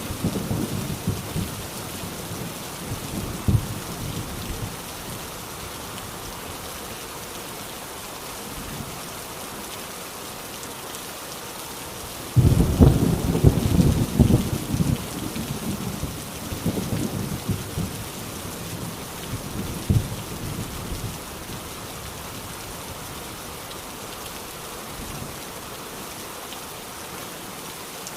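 Heavy rain falling steadily, with thunder. A rumble dies away over the first few seconds, then a sudden loud thunderclap comes about halfway through and rolls on in surges for several seconds before the rain is left alone.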